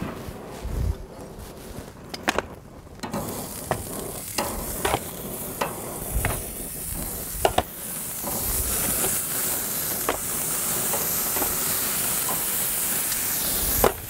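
Olive-oiled corn cobs laid onto a hot gas grill's metal grates: sharp clicks and knocks as the cobs and tongs hit the grates, under a sizzle that builds from about three seconds in and then holds steady.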